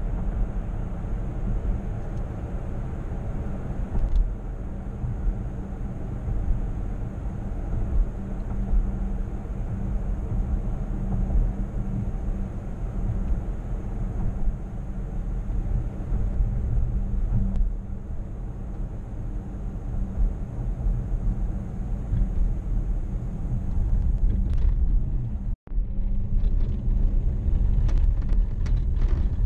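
Steady low engine and road rumble inside the cabin of a 2015 Dodge Charger AWD cruising at speed. The sound cuts out abruptly for an instant near the end, then picks up again.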